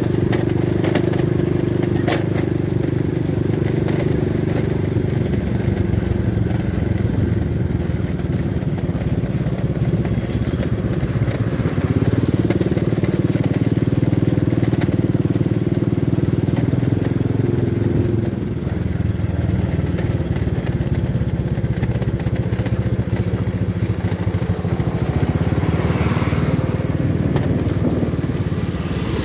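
Motorcycle engine running steadily while riding, heard from on the bike, its low drone shifting slightly in pitch with the throttle, mixed with road and wind noise.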